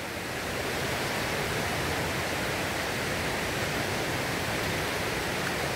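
A river after a storm, running with a steady, even rush of water.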